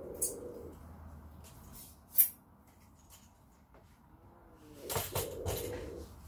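Metal camera tripod being handled: a few light clicks, then one sharp click about two seconds in, and a short clatter of knocks and rustling near the end as the tripod is moved and set down.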